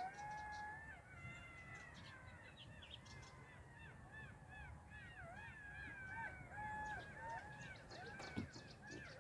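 Golden jackals howling in chorus: several faint, overlapping wavering wails mixed with short rising-and-falling yips.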